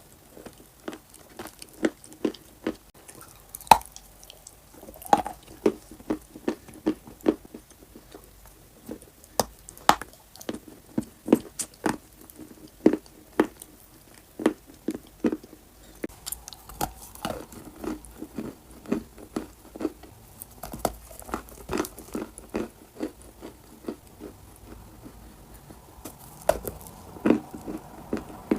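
Close-up mouth sounds of someone biting and chewing crunchy clay: sharp, irregular crunches several times a second.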